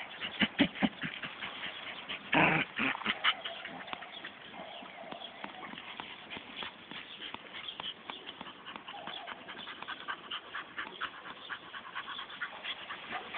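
Dog sniffing and snuffling at a hedgehog curled into a ball in the grass: a run of quick, rapid sniffs and clicks, with one loud short huff about two and a half seconds in.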